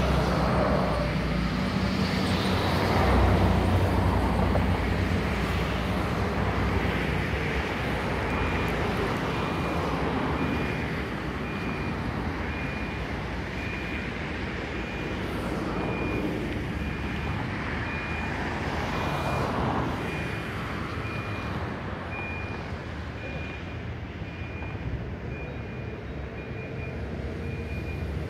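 Road traffic: vehicles passing and a low engine hum, loudest near the start. From under a third of the way in, a short high beep repeats about once a second, like a vehicle's reversing beeper.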